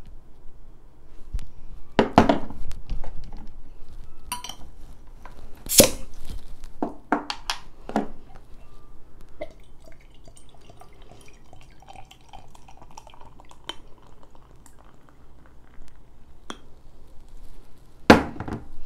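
Lager poured from a glass bottle into a stemmed beer glass, pouring and fizzing faintly for several seconds in the middle. Around it come clinks and knocks of the bottle and glass being handled, with sharp knocks about two and six seconds in and a louder one near the end.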